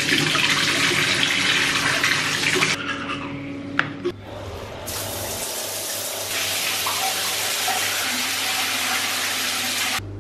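A bathroom sink tap runs onto a toothbrush and into the basin in a steady hiss, stopping abruptly about three seconds in. After a click, water runs again in a steady hiss from about five seconds in, from the shower turned on at its mixer handle, and cuts off abruptly near the end.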